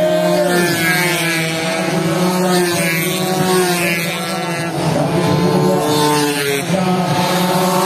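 Several two-stroke 120cc underbone racing motorcycles revving hard on the track, their engine pitches rising and falling and overlapping; one bike passes close about six seconds in.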